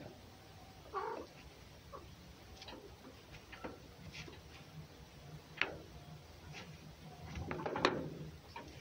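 Domestic cat's short cries and grumbles while play-fighting with a red fox, with scattered clicks and mouthing noises. A brief cry comes about a second in, and the loudest stretch of scuffling cries comes near the end.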